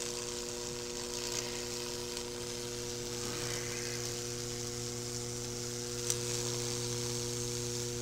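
Microwave oven transformer humming steadily while its high-voltage arc sizzles and crackles, burning branching Lichtenberg 'trees' into a wooden board. One sharper snap about six seconds in.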